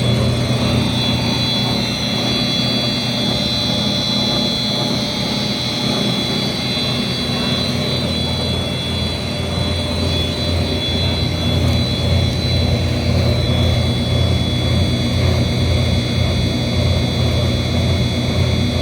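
Plastic recycling extruder with a 55 mm screw, driven by a 20 HP electric motor, running steadily: a loud, even hum with a high whine over it.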